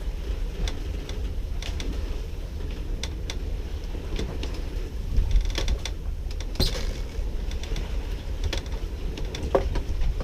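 Sailboat under way: scattered, irregular clicks and creaks from the boat's gear over a steady low wind rumble on the microphone.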